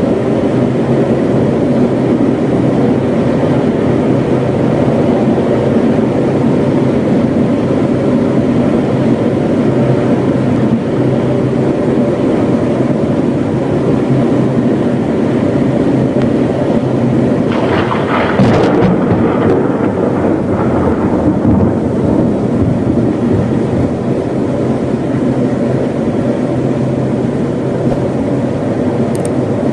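Heavy rain pouring down steadily, with a crack of thunder about eighteen seconds in that rumbles on for a few seconds.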